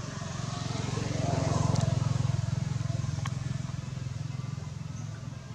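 A motor vehicle's engine passing by: a low drone that grows louder, is loudest about two seconds in, then slowly fades.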